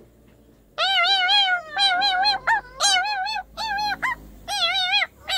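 An animal's high cries, about seven in a row starting about a second in, each wavering up and down in pitch.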